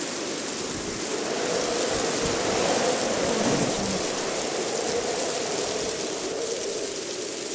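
Gusty wind howling in a wavering tone that swells about halfway through and then eases, over a steady hiss of rustling leaves.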